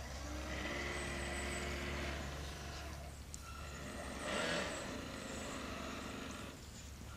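Small electric motor of a radio-controlled tug boat whining in short spells as it manoeuvres against a barge, once from about a second in and again briefly near the middle, over a steady low hum.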